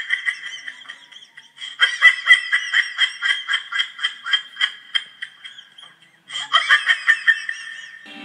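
High-pitched giggling laughter in quick, rhythmic pulses, in three runs with short breaks about a second and a half in and about six seconds in.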